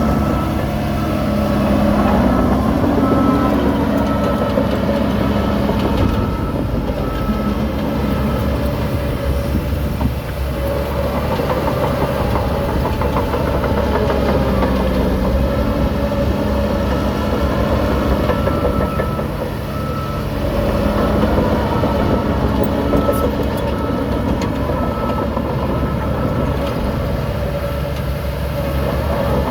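Heavy diesel engine running steadily, with a faint high beep repeating about twice a second through much of it.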